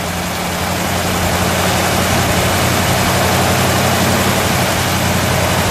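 1955 Dodge Royal Lancer's Red Ram polyspherical-head V8 idling steadily, heard from the open engine bay, swelling slightly in the first second.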